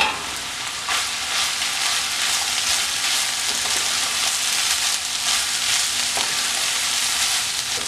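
Chopped jackfruit seeds sizzling in a hot non-stick pan while a spatula stirs them, scraping across the pan; the sizzle picks up about a second in and then holds steady.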